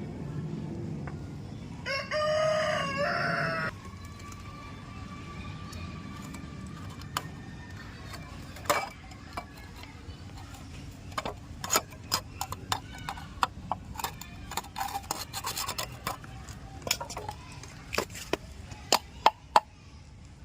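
A rooster crows once, starting about two seconds in. After that come scattered sharp clicks and knocks, growing more frequent toward the end.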